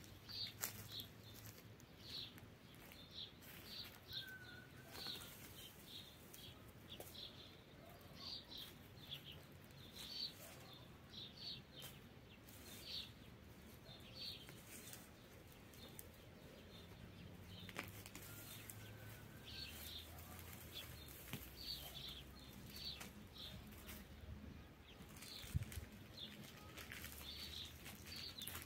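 Faint chirping of small birds: short high chirps repeated irregularly, with a few soft clicks and one sharper knock near the end.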